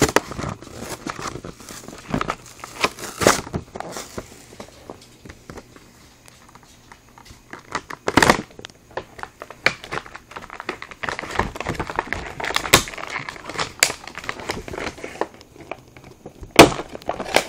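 Action-figure box packaging being torn open and handled: irregular crinkling, crackling and tearing, with a loud snap about eight seconds in and another near the end.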